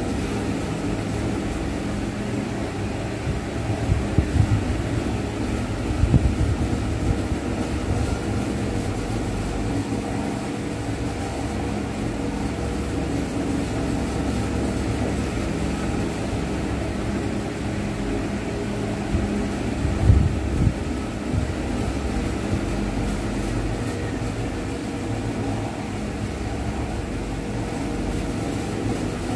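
Steady low mechanical hum with a few dull low thumps about four, six and twenty seconds in.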